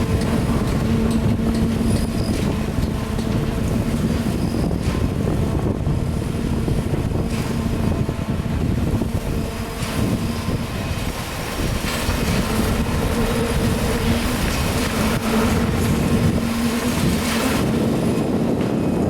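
Construction machinery running steadily with a low, even hum, with scattered knocks and clatter and some wind on the microphone.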